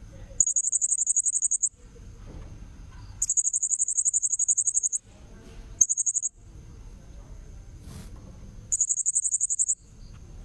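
Blue-crowned hanging parrot (serindit) lure-call recording: bursts of rapid, very high-pitched trilling, four of them lasting from half a second to over a second. A thin, steady high tone and a low background rumble fill the gaps between them.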